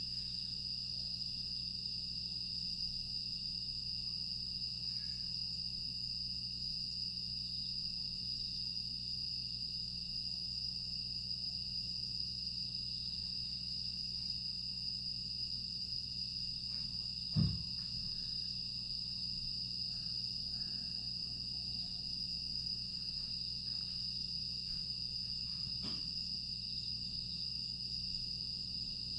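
Crickets and other grass insects chirring steadily at night in a continuous high trill, over a low steady hum. A single dull thump comes a little past halfway.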